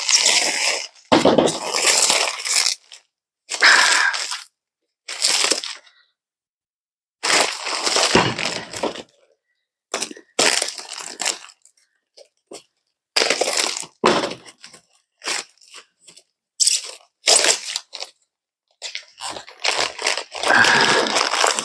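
Plastic wrapping being cut and peeled off a new enamel-painted leaf spring, crackling and crinkling in short spells with pauses between.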